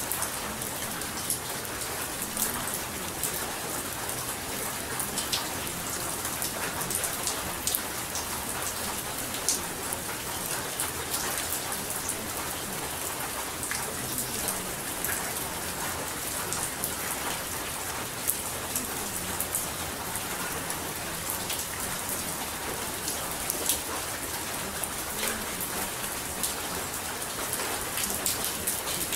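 Recording of steady rain falling, a constant hiss dotted with many small drop ticks.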